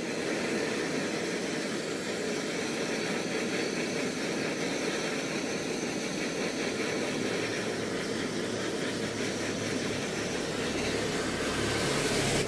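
Handheld butane gas torch burning with a steady hiss, its flame played over a steel motorcycle exhaust pipe to heat-tint it blue. It grows a little louder near the end.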